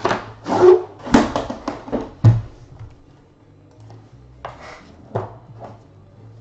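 Cardboard outer box scraping and rustling as it is slid off a metal card-box case, with a thump a little over two seconds in, then a few lighter knocks as the metal case is handled.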